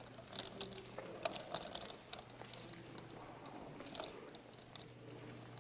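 Soft footsteps on a tiled floor: faint, irregular clicks and scuffs over a low steady hum.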